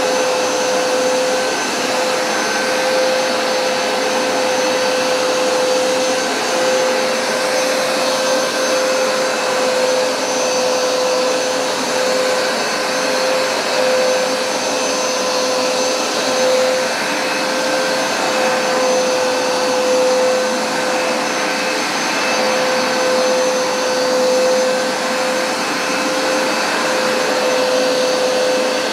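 Hoover SmartWash Pet carpet cleaner running steadily during a cleaning pass: a loud, even motor whine with one clear steady tone, its level swelling and easing slightly.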